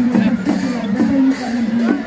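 Music: a held melody line that steps between two notes, with a few drum strokes.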